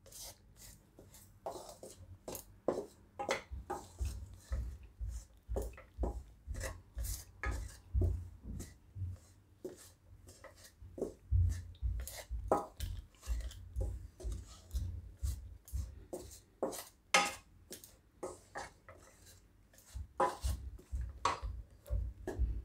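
A spatula stirring dry, crumbly rice flour mixed with milk cream in a kadai: repeated scrapes and light knocks against the pan, about two a second, with short pauses.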